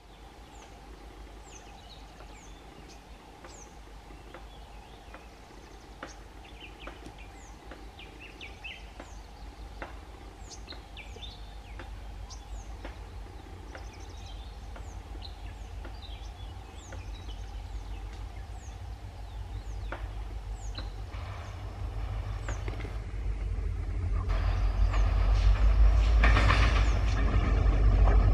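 Diesel-hauled train approaching, its low rumble growing steadily louder and loudest near the end. Short high chirps repeat throughout.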